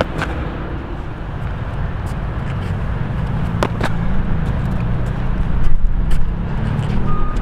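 Steady low rumble of city traffic, with a few sharp clicks.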